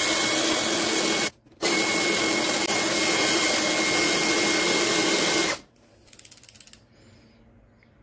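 A cordless drill running steadily with a constant whine as its bit drills out the rivet holding a die-cast toy car's base. It stops for a moment about a second in, starts again, and cuts off a little past halfway, leaving a few faint clicks.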